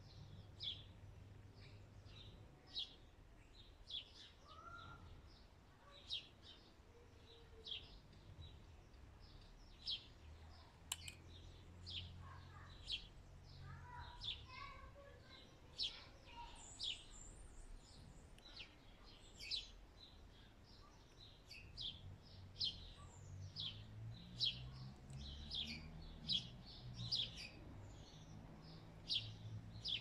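Small birds chirping: short, sharp, high calls repeated once or twice a second, with a few softer lower calls mixed in, over a faint low hum.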